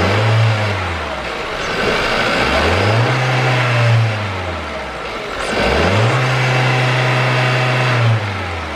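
Skoda Octavia A7's 1.2-litre CJZA turbocharged four-cylinder petrol engine being revved three times under the open bonnet. Each rev rises, holds briefly and falls back toward idle, and the last is held longest.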